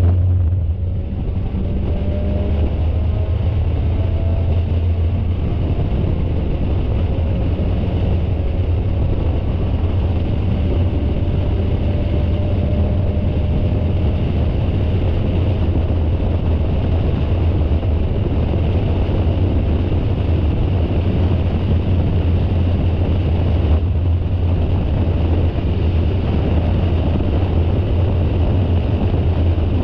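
Spec Miata race car's inline-four engine running hard under load, heard through the onboard camera with wind noise: a steady loud drone with a short dip about a second in.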